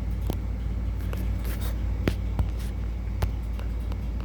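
A steady low hum with about five sharp clicks and taps scattered over a few seconds.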